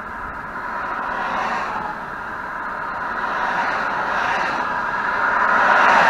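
Highway traffic passing a vehicle parked on the shoulder, heard from inside its cab: a steady rush of tyre and engine noise that swells as one vehicle after another goes by, the loudest pass near the end.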